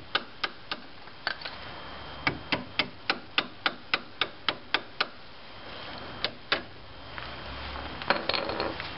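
Hammer striking a block of wood held against a strut-to-steering-knuckle bolt, tapping the bolt out of the strut. A few scattered taps, then a steady run of about eleven strikes at roughly three a second, two more, and a brief clatter near the end.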